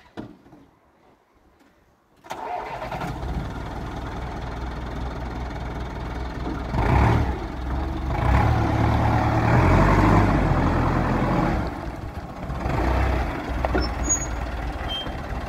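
Dimex D50 diesel forklift engine starting about two seconds in, then running steadily, louder and more uneven for several seconds in the middle.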